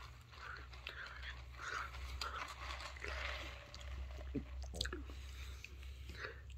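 A person chewing crunchy food close to the microphone, with irregular crunches and one sharper crunch about five seconds in.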